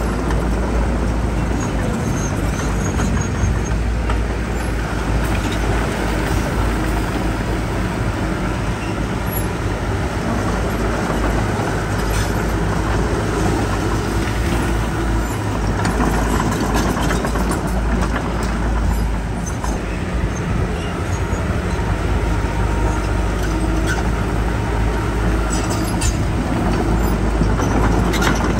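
Heavy diesel earthmoving machinery running steadily with a deep rumble, and a few light clicks here and there.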